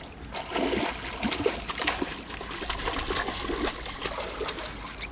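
Stream water trickling, broken by irregular small splashes from a hooked brown trout fighting close in.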